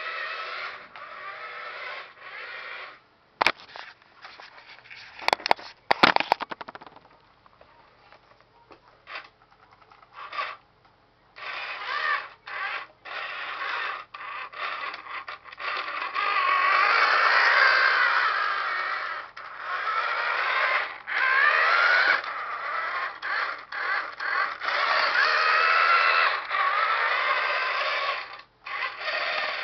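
The small electric motor and gears of a corded 1980s six-wheel toy truck whine in stops and starts as it drives across a wooden floor. A few sharp clicks and knocks come around three to six seconds in.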